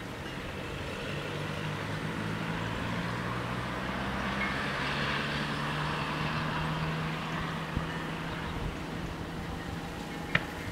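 A passing vehicle: an engine hum with rolling noise that swells to a peak about halfway through and fades away, followed by a single short tick near the end.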